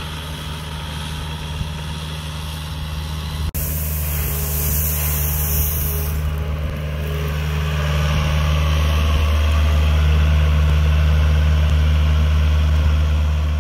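Hitachi mini excavator's diesel engine running steadily, getting somewhat louder about eight seconds in.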